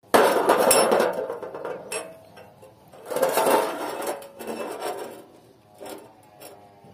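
Steel pipe sections scraping and clinking on a steel plate as they are handled, set down and butted end to end, with a faint metallic ring between the strokes. The two loudest scrapes come first and about three seconds in, then a few lighter knocks near the end.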